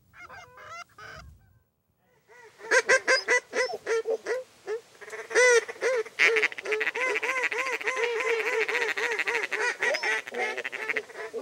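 A flock of geese honking. After a brief quiet, calls begin about two seconds in, then thicken into a dense chorus of many overlapping honks from about six seconds in.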